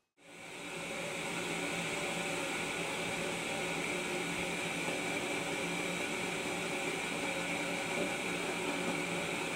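A fan running steadily: an even whirring hiss with a faint steady hum in it, fading in during the first second.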